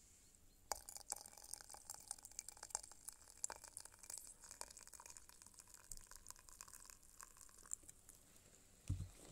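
Just-boiled water pouring from a kettle into a porcelain teapot: a faint, crackly splashing trickle that stops about eight seconds in. A dull low thump follows just before the end.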